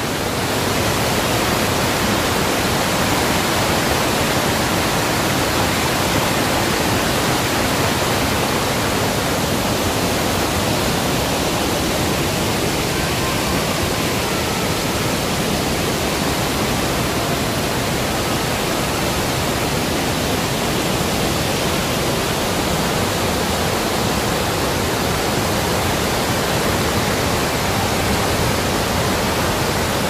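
Large waterfall in flood, brown floodwater pouring over a rock ledge and through rapids: a loud, steady rush of water that never lets up.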